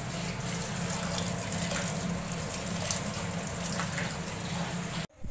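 Tap water running steadily, as if something is being rinsed under it, with a low hum underneath; it cuts off abruptly near the end.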